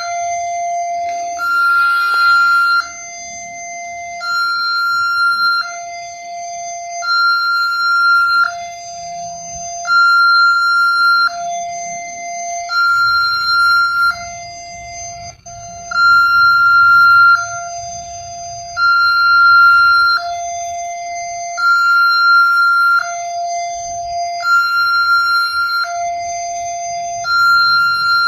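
Alkmar railway level-crossing warning siren sounding a two-tone alarm: a low note and a note about an octave higher alternate steadily, each held about a second and a half.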